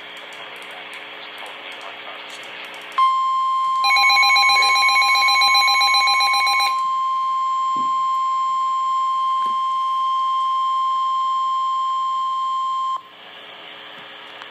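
Radio static hiss, then, about three seconds in, the weather-radio warning alarm tone, a single steady high tone held for about ten seconds before it cuts off sharply, with static hiss returning. For about three seconds near the tone's start a faster pulsing beep sounds over it. The tone signals that a warning message is about to be read.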